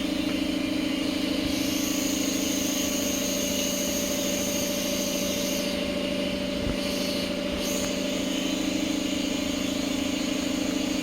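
A steady, unbroken mechanical drone, like an engine or machine running, with a thin high whine added for about four seconds starting a second and a half in.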